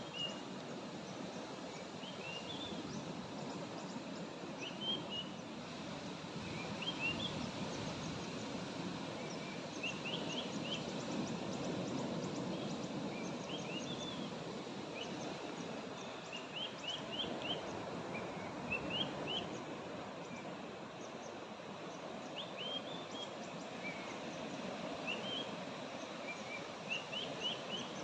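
A bird giving short rising chirps in quick clusters of two to four, repeated every couple of seconds, over a steady low outdoor background rumble.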